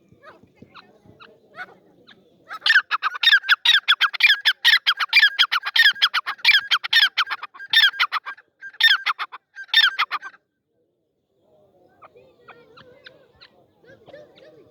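Teetar (francolin) calling: a fast run of loud, shrill repeated notes, several a second, for about eight seconds, breaking off briefly twice before it stops. Faint low sounds come before and after the calls.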